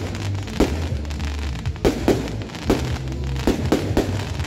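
Aerial fireworks bursting in the sky: a string of sharp bangs at irregular intervals, roughly one or two a second, some coming in quick pairs.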